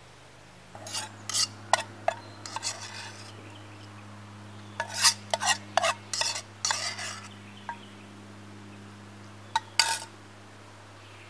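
A utensil scraping and clinking against a dish while eating, in three short bursts of strokes, over a steady low hum.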